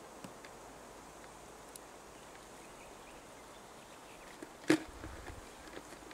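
Small clicks and rustles of a hooped net fish trap being handled by hand, with one sharp, loud click about three quarters of the way through, over a steady faint outdoor background.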